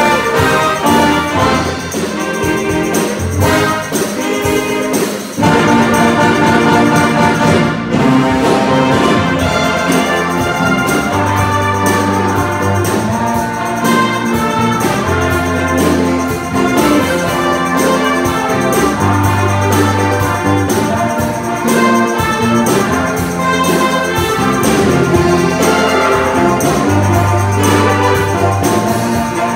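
A school wind band plays loudly: saxophones, trumpets and trombones, with long held bass notes that come back every few seconds.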